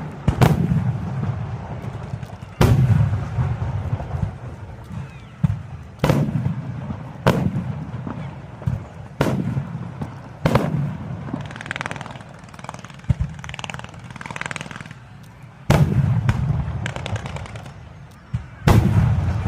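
Aerial firework shells bursting overhead: about eight sharp booms a second or two apart, each trailing off in a low rumble. Through the middle there is a stretch of dense crackling.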